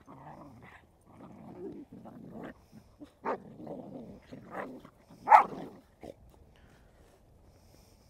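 Dogs play-wrestling, growling in short irregular bursts, with one louder bark a little over five seconds in; the growling dies away for the last two seconds.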